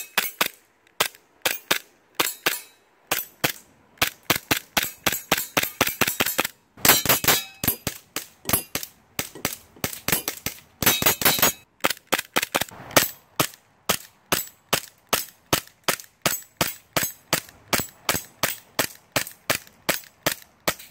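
Umarex Walther PPQ gas-blowback airsoft pistol, charged with propane, fired semi-automatically shot after shot, about two to three sharp cracks a second with the slide cycling, in a few quicker strings. Some BBs clang off small steel targets.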